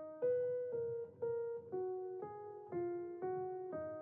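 Background music: a simple melody of struck, piano-like notes, about two a second, each one fading before the next.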